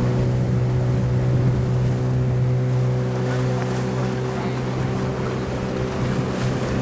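Motorboat engine running steadily at a constant pitch, heard from aboard, with water rushing along the hull and wind on the microphone.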